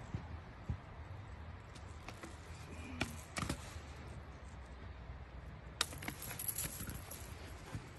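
Handling noise as a fisherman works with a blue catfish and his rod: a few scattered clicks and knocks over a low rumble.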